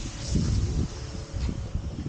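Wind buffeting the camera microphone in uneven low gusts while skiing, with a fainter hiss of skis sliding over the snow.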